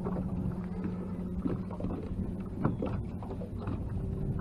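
Water moving and lapping against a small fishing boat's hull, with a few soft knocks, over a steady low hum that fades out about two seconds in.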